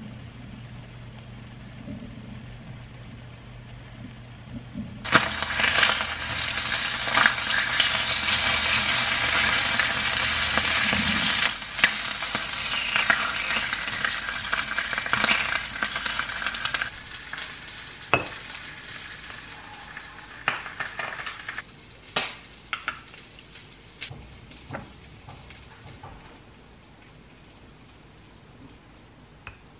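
Abalone searing in butter in a frying pan, sizzling loudly for about twelve seconds from about five seconds in, as chopsticks turn the pieces. The sizzle then dies down, leaving a few light clicks and taps.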